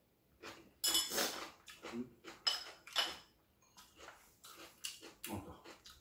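Chopsticks and a spoon clinking as they are set down on ceramic dishes, then ceramic bowls knocking lightly as they are picked up. Several sharp clinks with a short ring, the loudest about a second in.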